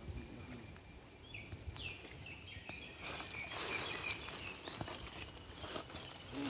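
Small birds calling with short, high whistled chirps. From about three seconds in there is a soft splashing and dripping of water as a cast net is gathered and lifted in a shallow stream.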